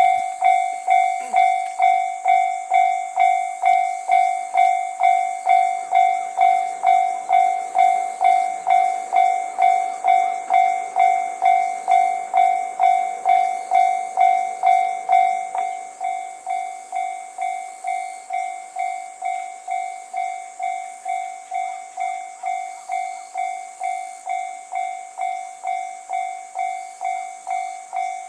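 Japanese railway level crossing alarm ringing its electronic bell in a steady rhythm of about two strokes a second, warning of an approaching train. About 15 seconds in, the bell drops to a quieter volume and keeps ringing.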